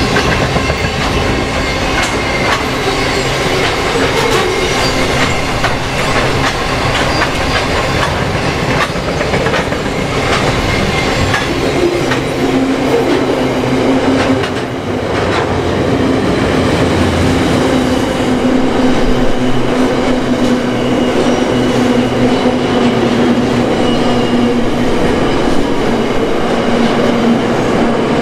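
Freight train's container and flat wagons rolling past at speed, the wheels clicking steadily over the rail joints. A steady low hum from the running gear sets in about halfway through.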